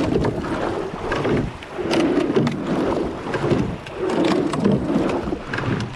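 Rowing eight under way at race pace: oar blades catching and pulling through the water, oarlocks clunking and water rushing along the hull, in a rhythm of about one stroke every two seconds.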